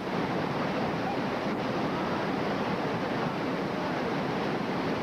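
Whitewater of the Youghiogheny River rushing through a rapid: a steady, unbroken hiss of moving water.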